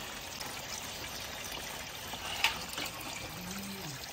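Water pouring from a PVC pipe outlet into a plastic hydroponic reservoir tub, a steady splashing as the pumped water circulates. A single sharp click about two and a half seconds in.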